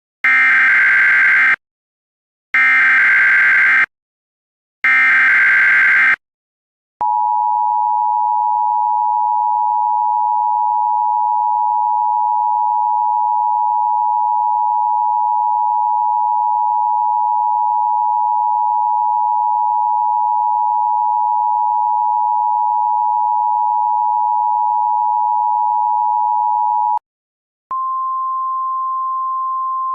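Emergency Alert System signal. Three short bursts of SAME header data tones come first, about a second apart. Then the two-tone EAS attention signal sounds as a steady dual tone for about twenty seconds, stops, and after a brief gap a single slightly higher steady tone begins.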